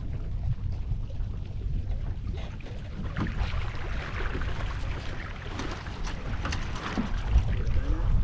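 Wind buffeting the microphone aboard a Lightning-class sailboat under way, with the hiss of water rushing along the hull growing louder from about three seconds in and a few light knocks.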